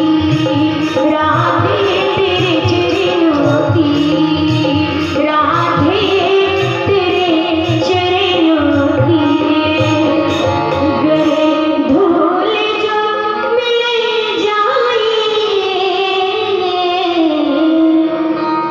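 Devotional Hindi bhajan music: a gliding melody line over a steady hand-drum rhythm.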